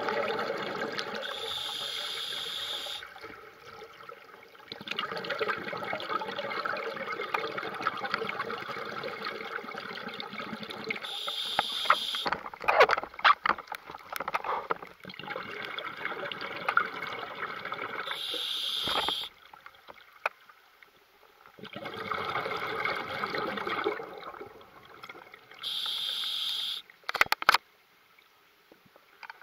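Scuba diver breathing through a regulator underwater: several long rushes of exhaled bubbles, each followed by a short, steady hiss of the regulator, about four breath cycles in all. A few sharp clicks fall around the middle and near the end.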